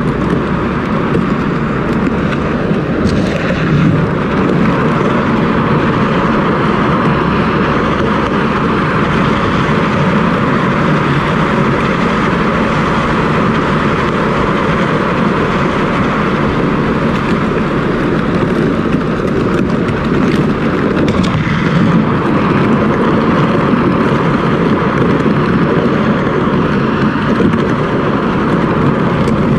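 Plastic kayak hull weighted with four cinder blocks scraping along asphalt as it is towed on chains behind a truck: a loud, steady grinding hiss mixed with road noise from the towing.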